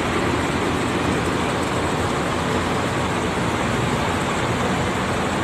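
Intercity coach's diesel engine running steadily as the bus drives slowly into the terminal, a constant low rumble.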